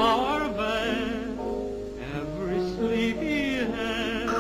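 Dance-band music with a wavering melody line over held chords.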